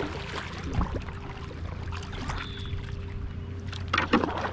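Kayak paddle strokes dipping and splashing in shallow floodwater, with water lapping at the hull and wind rumbling on the microphone; a couple of louder splashes come near the end.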